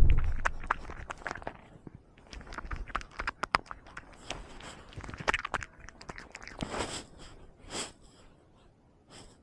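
Close, irregular crackling and rustling picked up by a camera worn on a cat, with a heavy bump at the very start, then thinning out near the end.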